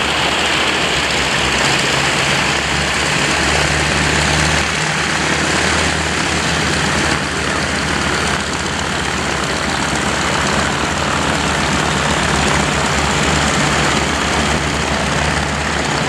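Pitts S-1S aerobatic biplane's piston engine and propeller running steadily through an aerobatic routine, the engine note shifting a little twice as the plane manoeuvres.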